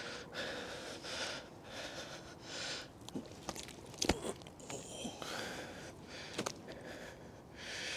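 A mirror carp thrashing as it is lifted in an angler's hands, with a sharp slap about four seconds in and a few lighter taps, over soft close breathing and rustling.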